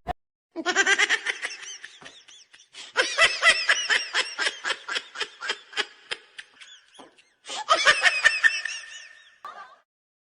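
Funny laugh sound effect: high-pitched laughter in three bouts, each a fast run of 'ha' pulses at about five a second, the middle bout the longest.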